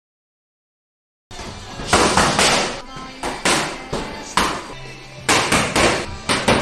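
Near silence for about the first second, then boxing gloves smacking into focus mitts in quick, irregular combinations. Each hit is a sharp slap with a short echoing tail.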